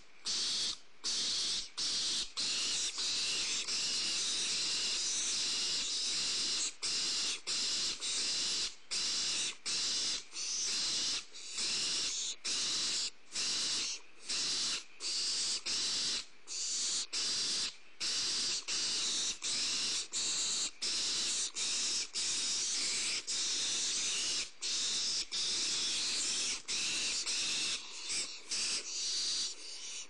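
Barn owl chicks hissing over and over: their raspy food-begging "snoring" calls, one hiss after another with short breaks in between.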